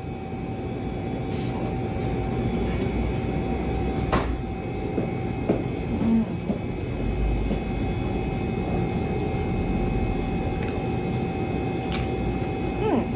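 A steady rumbling hum with a faint high whine, broken by a few faint clicks.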